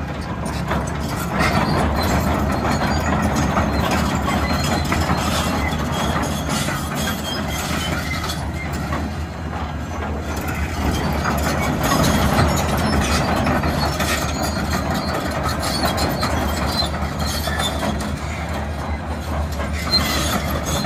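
John Deere 450D LC hydraulic excavator travelling on its 36-inch steel triple-grouser tracks. Its diesel engine runs steadily under a continuous clatter of clanks from the track chains and rollers.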